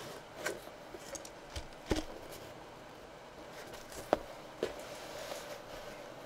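Quiet handling sounds at a table: a few soft knocks and clicks, the sharpest about two and four seconds in, over a faint room hiss.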